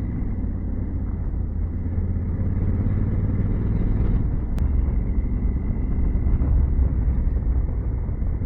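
2021 Honda Africa Twin's parallel-twin engine running steadily under way on an unpaved road, a low rumble mixed with wind and road noise, getting a little louder in the second half.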